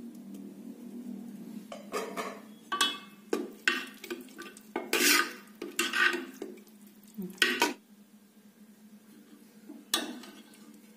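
Metal ladle stirring thick sweet pongal in a metal pot, scraping and clinking against the pot's sides in a run of strokes, then one more clink near the end.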